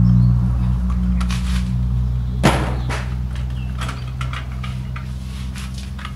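A plastic suspended cat water dispenser clicking and knocking against a wire cage as it is pushed through the bars, with one sharp click about two and a half seconds in. A motor vehicle's engine hums low underneath and fades away.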